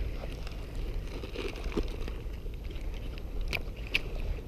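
Wind buffeting the microphone over small waves washing in the shallows, with two short, sharp clicks near the end as a hook is worked out of a small perch.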